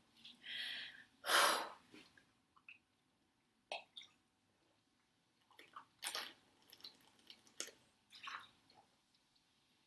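A woman drinking cola: wet mouth and swallowing noises with small clicks, and one louder noisy burst about a second and a half in, then scattered smaller ones.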